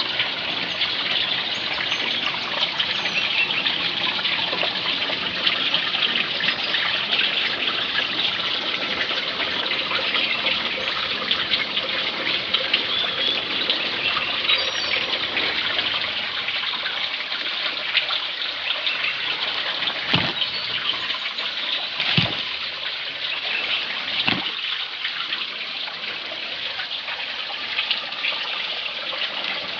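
Stream water flowing and trickling over rocks, a steady splashing hiss, with three short knocks about two-thirds of the way through.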